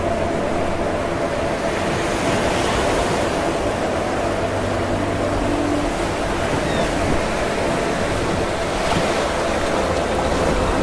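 Small waves breaking and washing up a sandy beach: a steady rush of surf that swells as a wave breaks about two seconds in and again near the end.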